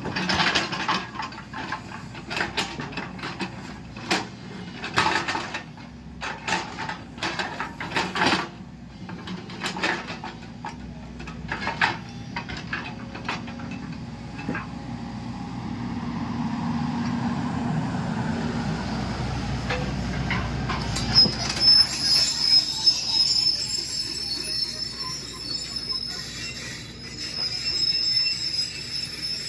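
JCB 220LX tracked excavator working: repeated metal clanks and knocks for the first half, then the engine comes under heavier load. From about two-thirds of the way in, a steady high squeal runs over the engine.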